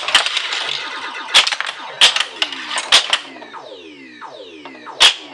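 1980 Williams Black Knight pinball machine in play: sharp coil-fired clacks about a second apart over its electronic sound effects, with a run of falling synthesized tones a bit past halfway.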